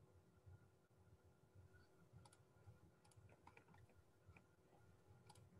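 Near silence: room tone with scattered faint clicks of a computer mouse and keyboard being used.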